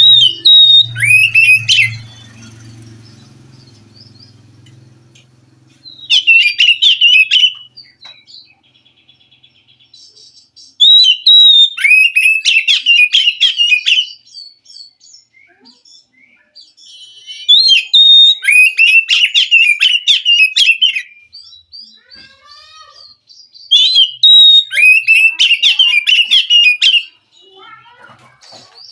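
Oriental magpie-robin singing: five loud song phrases a few seconds apart, each opening with a clear high note and running into a quick string of chattering whistled notes, with faint calls in the gaps.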